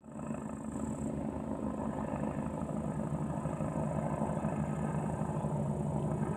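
Helicopter flying past: a steady drone of rotor and engine with a fast, even chop.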